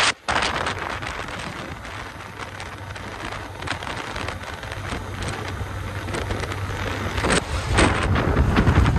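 Wind buffeting the microphone on a moving motorcycle, gusting stronger near the end, over the steady low hum of the engine. The sound drops out briefly just after the start.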